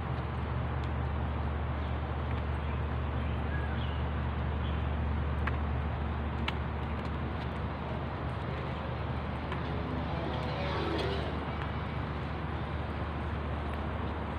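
Steady outdoor background rumble and hiss picked up by a phone while walking along a paved path, with a few faint light taps and a brief faint voice about ten seconds in.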